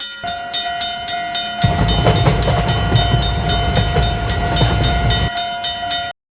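Railroad-crossing sound effect: a crossing bell dinging in a quick even rhythm over a steady tone, with a train rumbling past through the middle. It cuts off suddenly near the end.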